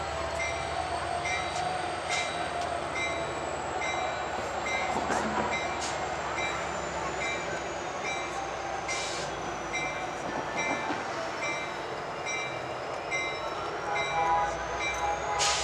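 A train at a station: a steady rolling rail noise with an evenly repeating high-pitched ring over it.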